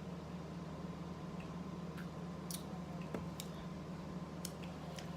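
Faint wet mouth clicks and smacks of someone eating saucy eggs, a handful of them from about two seconds in, over a steady low electrical hum.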